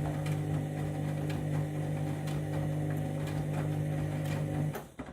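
Candy washing machine running its main wash: the drum motor hums steadily, with a light clicking about two or three times a second. The sound cuts off suddenly near the end.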